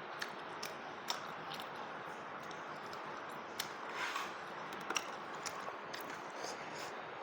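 Close-up eating sounds of a person chewing and lip-smacking over goat trotters with rice, with many short sharp clicks and a couple of softer wet sucking sounds.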